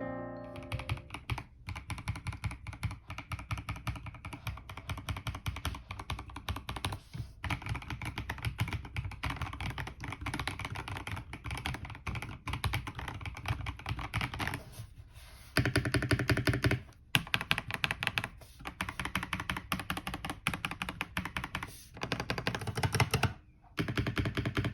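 Fast continuous typing on an Akko mechanical keyboard, a rapid clatter of keystrokes broken by a few short pauses and growing louder in stretches during the second half.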